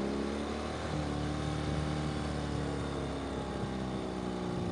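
Ural sidecar motorcycle's boxer twin engine running under way, steady apart from a brief change in pitch about a second in, over road and wind noise.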